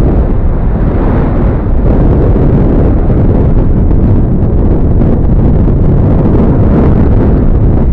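Loud, steady rumble of wind buffeting the microphone of a handlebar-mounted action camera while riding along a paved path.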